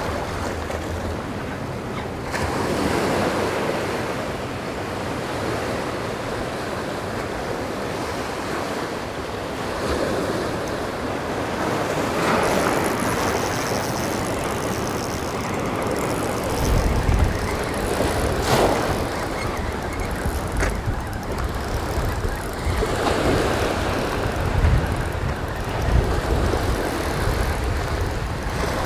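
Ocean surf breaking on and washing over jetty rocks, swelling every few seconds as each wave comes in. About halfway through, a low rumble of wind on the microphone joins it.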